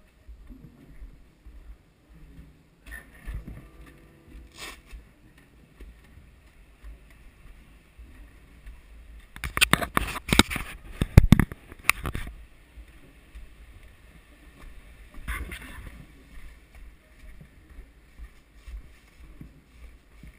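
Handling noise of a worn camera on the move: a low rumble with scattered rustles, and about ten seconds in a loud two-second burst of scraping and knocking as a curtain brushes across it in a wooden corridor.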